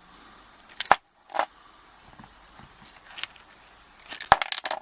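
Small metal clicks and clinks from a Yale 850 padlock being taken apart, its core and loose parts knocking against the steel body as they come out. A few separate sharp clicks come first, then a quick run of clinks near the end.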